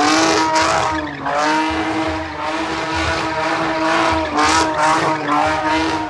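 Drift car spinning donuts: the engine is held at high revs as one steady, slightly wavering high note, over the hiss and squeal of spinning tyres.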